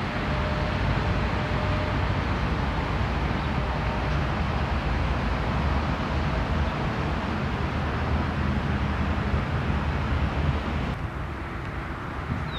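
Steady outdoor background noise, a low rumble of road traffic, turning duller near the end.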